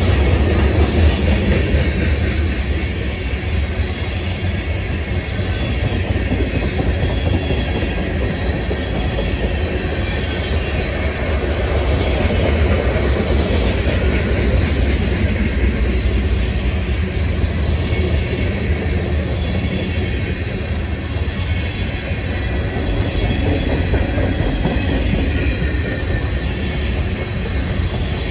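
Freight cars of a long mixed manifest train rolling slowly past: tank cars, gondolas and covered hoppers, their steel wheels making a steady rumble and clatter on the rails.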